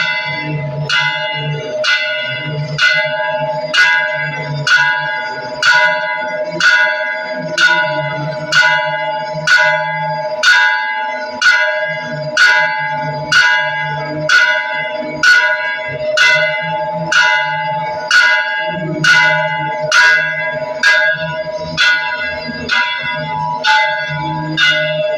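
Temple bell struck over and over at a steady, even pace, a little more than once a second, each strike ringing on into the next. A low pulsing hum runs beneath the ringing.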